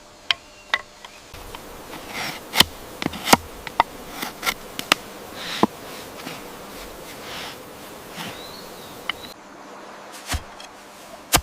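A series of sharp cracks and knocks at irregular intervals, over a faint background. They cluster between about two and five seconds in, with one more near the end.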